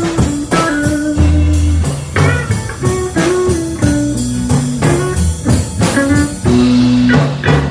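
Background music: electric guitar with bass and a drum kit keeping a steady beat, in a bluesy style.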